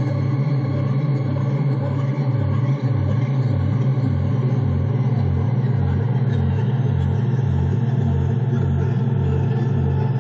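Electronic drone music: a deep bass tone pulsing evenly about twice a second beneath a steady, layered hum of higher held tones.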